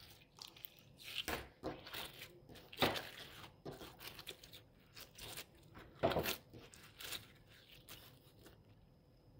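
Hands tearing and squishing a lump of thick, not very stretchy jelly slime, in irregular short bursts. The loudest come about three and six seconds in, and they die away near the end.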